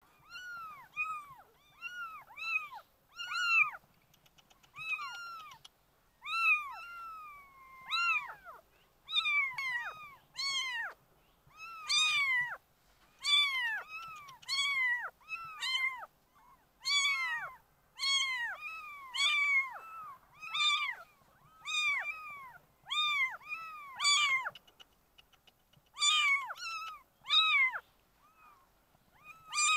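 Young kittens meowing over and over: short, high-pitched calls that rise and fall in pitch, one or two a second, at times overlapping.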